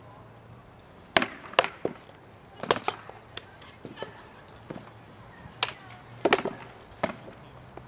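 Rattan swords striking shields and armour in sword-and-shield armoured combat sparring: a dozen or so sharp, irregular cracks and knocks, some in quick pairs.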